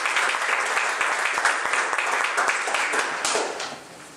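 Small audience applauding, a spread of hand claps that dies away near the end.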